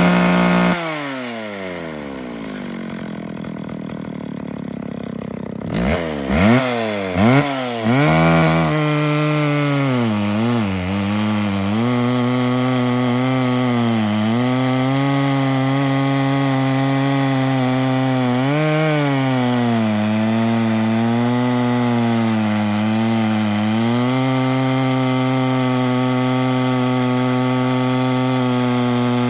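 McCulloch Pro Mac 650 two-stroke chainsaw with an ungoverned carburettor. It drops from high revs to idle, is revved three times about six seconds in, then runs at full throttle cutting into a large log. Its note dips and recovers a few times under load.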